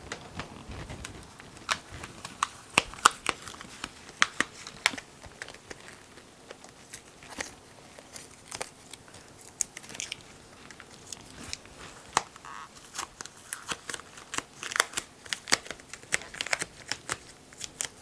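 Blue painter's tape being peeled off the edge of an epoxy-coated tabletop, the thin cured epoxy along the edge cracking and snapping off. It comes as a long, irregular run of sharp cracks and crackles.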